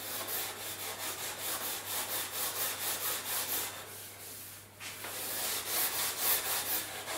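Small sanding block rubbed by hand across a sheet of balsa wood in quick back-and-forth strokes, with a short pause about four and a half seconds in, smoothing the glued joint between edge-joined sheets.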